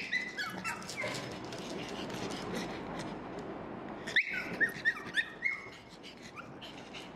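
Pug whining and yelping in short, high-pitched cries, begging for food: one bout at the start and another about four seconds in.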